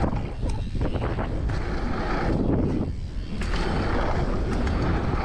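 Wind buffeting the microphone with a deep rumble, over a rushing noise that swells and fades several times.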